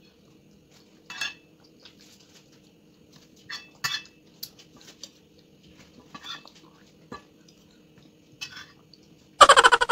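A metal spoon clinks and scrapes against a bowl of pumpkin purée in a handful of light, separate strokes. Near the end a much louder pitched sound starts abruptly and pulses rapidly.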